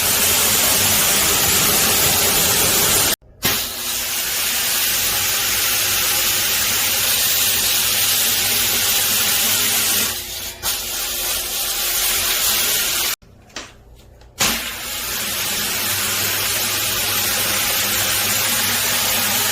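Water spraying onto an air-conditioner filter as it is rinsed: a steady hiss that cuts off suddenly about 3 s in and again for about a second near 13 s before starting up again.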